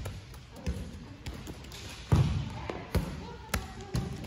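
Rubber playground balls knocking and bouncing on a hardwood gym floor: a string of about six sharp knocks, the loudest about two seconds in, each with a short echo.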